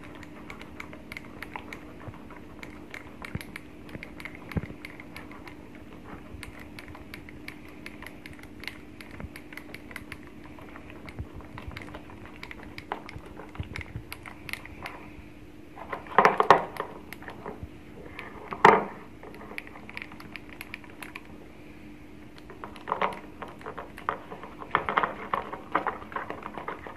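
Wire whisk beating a thick cheese sauce in a small stainless steel saucepan: a quick run of fine clicks and scrapes as the whisk wires hit the pan, with several louder knocks in the second half, over a faint steady hum.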